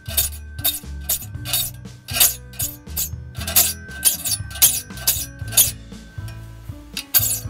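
Hand file rasping across the steel teeth of a one-man crosscut saw in short strokes, about two to three a second, with a pause shortly before the end, while the pointed teeth are filed to shape. Background music plays underneath.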